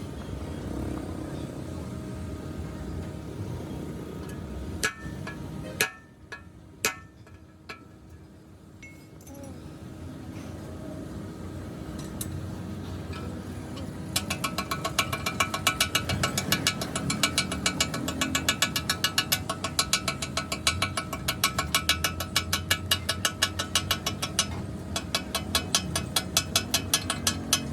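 A few sharp knocks, then from about halfway a fast, even run of ringing metallic clinks, several a second, over a steady low workshop din.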